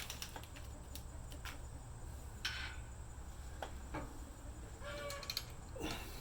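Scattered light clicks and clinks of stainless bolts, flat washers and nylock nuts being handled and fitted through a bumper mounting plate, with a short steady-pitched call about five seconds in.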